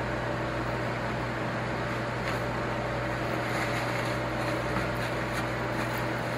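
Steady fan and electrical hum from a running kitchen appliance, with a few faint light clicks of handling about halfway through.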